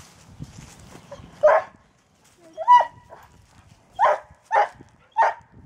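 Airedale terrier barking at a snake: about five short single barks spaced over a few seconds, the second with a clearer, higher yelping tone.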